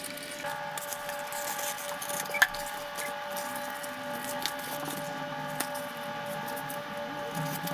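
Adhesive sheet film (contact paper) being smoothed onto a drawer front and handled on a floor: crinkling and rubbing, with a single sharp click about two and a half seconds in.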